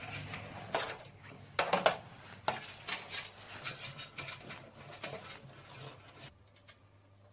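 Light clicks and knocks of computer parts being handled during a PC build, a quick irregular string of small hard taps and clatter that dies down near the end.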